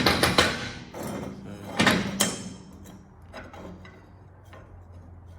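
Metal clattering and knocking as a homemade fixture table clamp is handled and set in place: a loud clatter right at the start, another about two seconds in, then a few lighter clicks.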